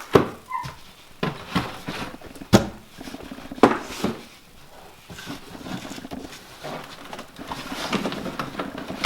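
Unboxing brake parts: a series of sharp knocks and clacks as boxed parts and packaging are handled, the loudest about two and a half seconds in, then steady rustling of packaging with small clicks.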